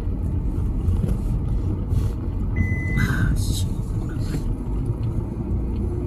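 Steady low rumble of road and engine noise inside a moving car's cabin. A single short high beep sounds a little before halfway, followed at once by a brief burst of noise.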